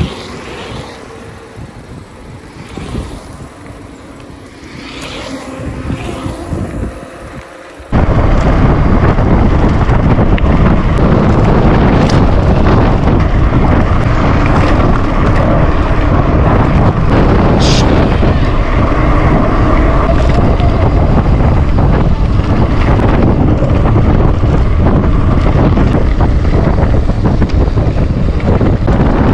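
Wind buffeting a camera's microphone while riding, loud and rumbling; it starts abruptly about eight seconds in, after a quieter stretch of lighter wind and road noise.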